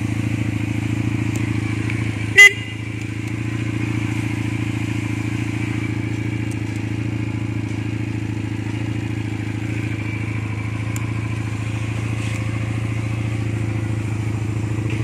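Rebel 170 cruiser motorcycle's engine idling steadily, with one short, loud horn beep about two seconds in.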